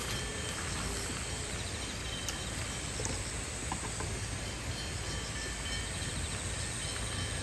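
Steady outdoor background noise, a low rumble with hiss, and faint insect chirping high above it.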